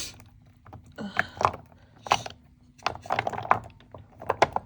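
Small glass essential-oil bottles clicking and clinking together as they are picked up and sorted through, in irregular sharp taps.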